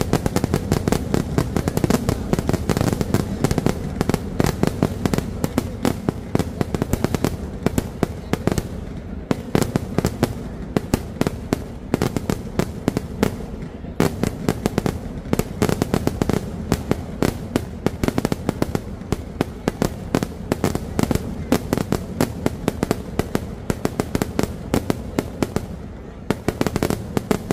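A vedikkattu fireworks display going off in a rapid, unbroken barrage of firecracker blasts, many sharp bangs a second.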